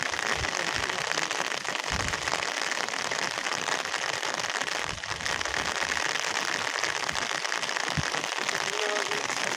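Heavy rain falling steadily, a dense even patter of drops, with scattered low thumps.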